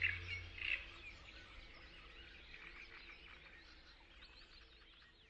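Birds chirping and twittering in quick, short calls that slowly fade out; a low music drone dies away about half a second in.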